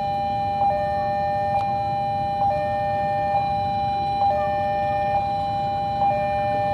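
Railway level-crossing warning alarm sounding: two held electronic tones with a short click and break repeating a little under once a second.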